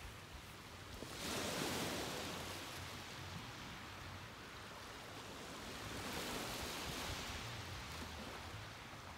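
Ocean surf: waves washing in, swelling twice, about a second in and again around six seconds in.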